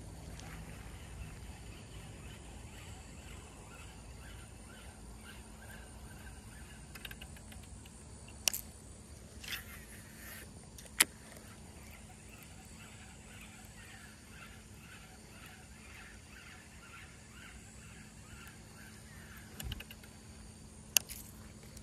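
Baitcasting reel in use: a few sharp clicks, and stretches of faint rhythmic ticking as the line is wound back in, over quiet outdoor background.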